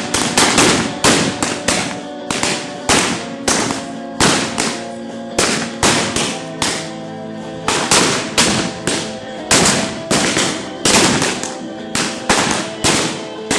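Gunshots in a rapid, irregular string of about two a second, each a sharp crack with a short decay, over background music with steady held notes.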